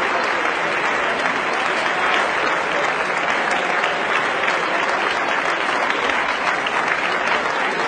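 Large crowd applauding: a steady, dense wash of many hands clapping, holding an even level throughout.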